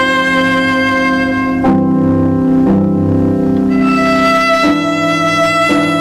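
Slow instrumental music with long held notes, the harmony changing about once a second.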